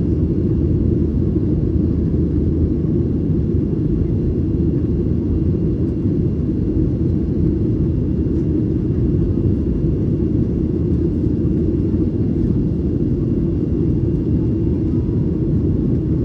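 Steady low rumble inside the cabin of a Boeing 737-900ER, its CFM56 engines and the airflow holding an even level with no change.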